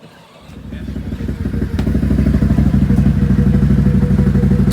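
A motor on a Can-Am Outlander 850 ATV starts up and runs with a fast even pulse, growing louder over about a second and a half and then holding steady.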